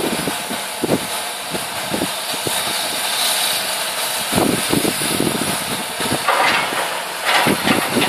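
Hydraulic excavator's diesel engine running during concrete demolition, with irregular knocks and clatter. Louder bursts come about halfway through and again near the end.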